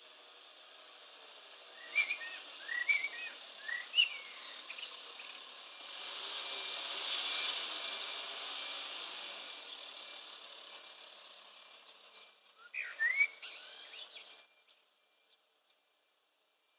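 Common blackbird singing in two bursts of short fluty, gliding phrases, one about two seconds in and another near the end, over a soft hiss that swells in the middle; the sound cuts off suddenly just after the second burst.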